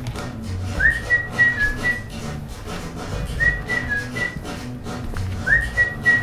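Background music led by a whistled melody: a short phrase that swoops up into a few held notes, repeated about every two and a half seconds over a light bass line.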